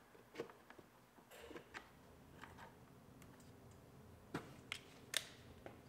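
Faint, scattered clicks and light knocks of plastic parts being handled as a fog light is fitted into a plastic bumper cover, with a few sharper clicks about four to five seconds in.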